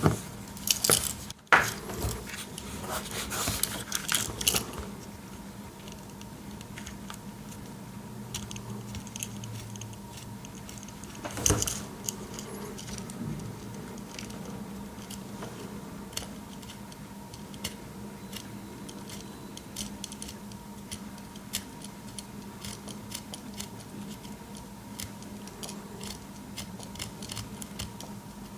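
Small clicks and light metallic jingles of a Swiss Army knife being handled while its paracord lanyard is unravelled into thinner strings. The clicks come thick in the first few seconds, with one louder knock about eleven seconds in, then thin to faint scattered ticks.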